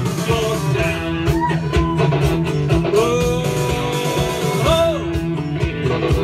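A rock band playing live: guitar and drums keep a steady beat, with a lead melody gliding over the top.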